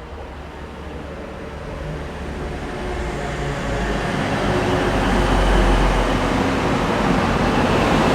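A train approaching, its running noise growing steadily louder over about five seconds and then holding level, with a low steady hum underneath.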